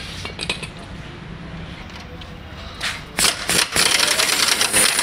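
Fast, loud metallic rattling of a wrench running a bolt in, starting about three seconds in, while the new belt tensioner bearing is fitted.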